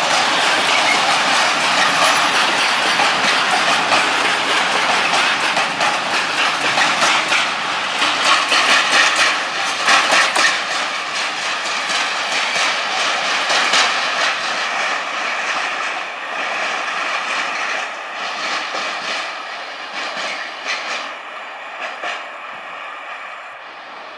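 Freight train of coal-loaded open wagons rolling past, with wheels clattering rhythmically over rail joints and points. The clatter is loudest in the first half and dies away over the last several seconds as the train draws off.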